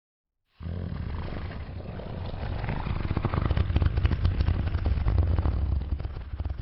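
Long, low rumbling fart sound with a fast crackle through it, starting abruptly about half a second in and growing louder toward the middle.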